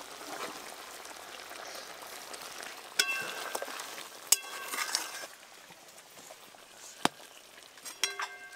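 Goat meat sizzling in a metal wok as ghee is poured in, while a metal spatula stirs and clinks against the pan several times. The sizzle dies down a little past halfway, leaving a few more sharp clinks of a spoon on the wok near the end.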